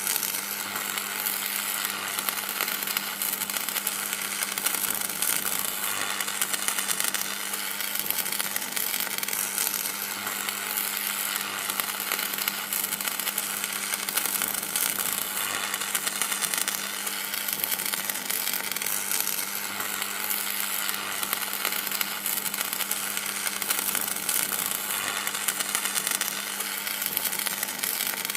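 Electricity sound effect: a steady electric buzz with a low hum and continuous fizzing crackle, holding at an even level throughout.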